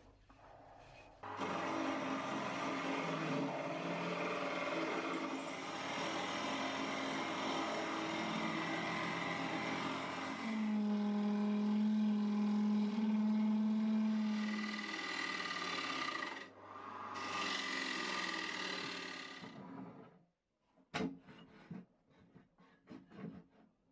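Wood lathe running while a turning gouge cuts a spinning poplar bowl, a steady scraping, shaving noise over the lathe's hum; a steady low drone joins it for a few seconds in the middle. The cutting breaks off briefly and stops about 20 seconds in, followed by a single sharp knock.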